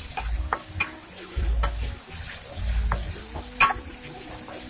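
Metal spatula stirring and scraping chili paste around a wok in repeated strokes, over the sizzle of the paste frying in oil; one sharp clink of the spatula against the wok about three and a half seconds in.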